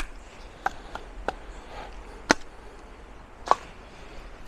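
Fox Aruru folding knife splitting wood: six sharp wooden knocks at uneven intervals, the loudest a little past two seconds in and another about three and a half seconds in.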